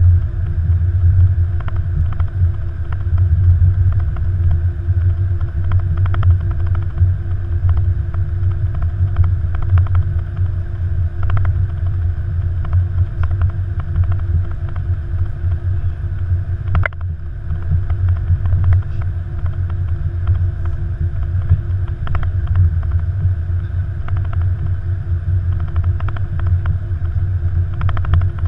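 Cockpit noise of an Airbus A330-200 rolling slowly along the runway: a steady low rumble with a faint steady hum, and now and then a light click or knock.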